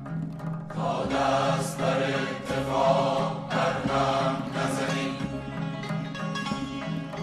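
Kurdish traditional music: voices chanting in long phrases over a steady low drone, the singing coming in about a second in.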